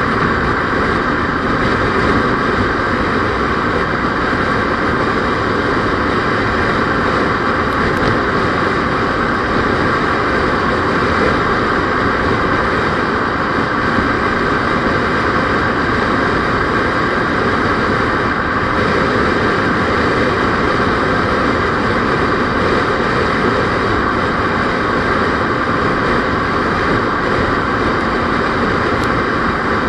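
Steady engine and road noise of a moving vehicle, holding an even level and pitch with no changes.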